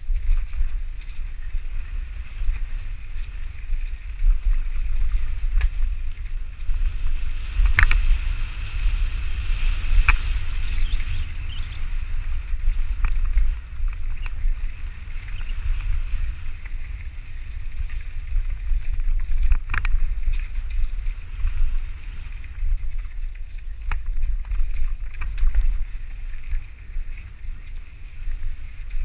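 Mountain bike riding down a dirt trail: wind rumbling steadily on the microphone, with scattered sharp clicks and rattles from the bike over rough ground, the loudest about 8, 10 and 20 seconds in.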